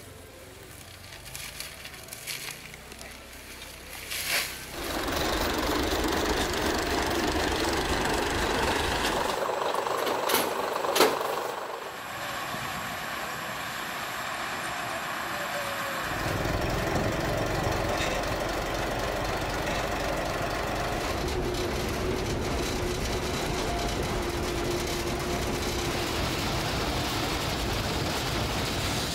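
Small diesel locomotive engine running with a steady low rumble, from about halfway in. Before it comes a louder stretch of even noise with one sharp click.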